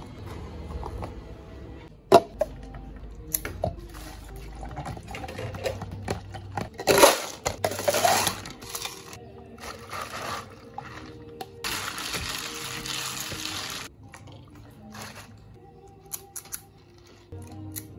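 Soft background music, with drink-making sounds over it: a few sharp knocks and clatters, then about seven seconds in, a milky drink poured from a plastic cup over ice, rising in pitch as the cup fills. A steady hiss lasting about two seconds follows a few seconds later.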